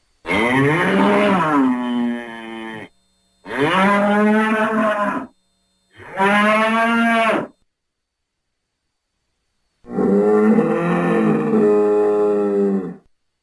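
Bull mooing: four long calls separated by short silences, the first rising and then falling in pitch before trailing off quieter, the last the longest.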